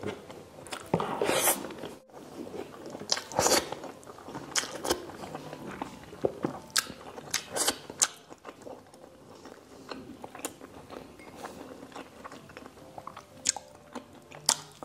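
A person chewing mouthfuls of rice and saucy pork asado, with many short mouth clicks and a few louder bursts of chewing, the first about a second in and another a little after three seconds.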